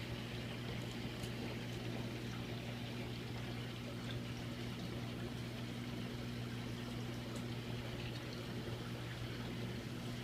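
Aquarium running: a steady electrical hum from the tank's pump or filter, over a constant trickle and splash of moving water.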